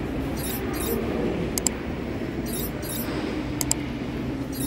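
Underground metro station ambience: a steady low rumble and hum, with light high-pitched rattles and paired clicks recurring about once a second as the walker climbs the stone stairs.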